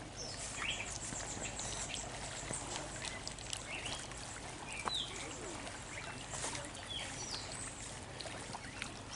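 Birds chirping outdoors: short, scattered chirps and whistles over a faint steady hiss of open-air background, with a few soft clicks.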